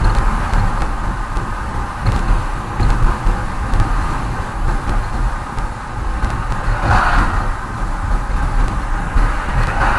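Steady road and engine noise inside a car's cabin cruising at about 50 km/h: a low rumble with tyre hiss, swelling briefly about seven seconds in.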